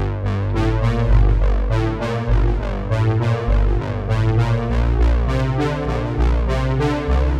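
Background music: a synthesizer and keyboard track with a heavy bass line and a steady beat.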